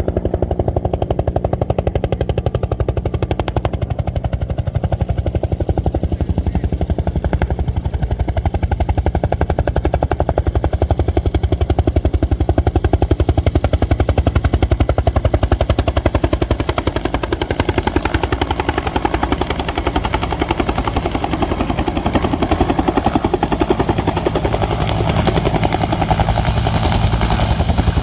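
Bell UH-1 Huey helicopter coming in to a low hover, its two-bladed main rotor beating in a rapid, steady chop over its turbine engine. The high whine and hiss grow louder through the second half as it draws close.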